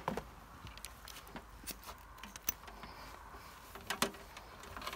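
Faint, scattered clicks and knocks as a compressed-air hose with a brass fitting is handled and connected, with a sharper knock about four seconds in.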